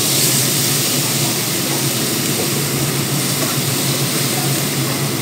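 Kitchen exhaust fan running steadily, a low motor hum under an even rushing hiss.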